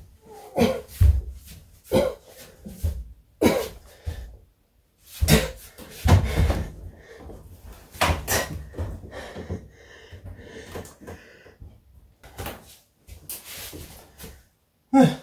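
Metal dryer cabinet knocking and thumping as it is set down on top of a front-load washing machine and shoved back into place: a run of separate heavy bumps, with quieter rubbing and shuffling in between.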